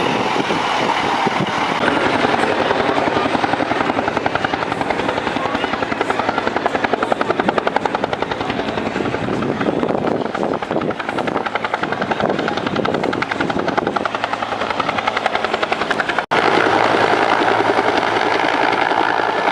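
Helicopter running overhead, its rotor beating in a fast, steady chop. The sound cuts out for an instant about sixteen seconds in and then carries on.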